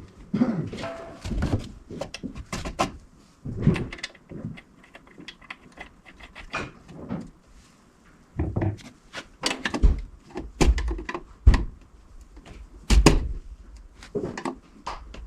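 Irregular knocks, clicks and clunks of tools and parts being handled, with several heavier thumps.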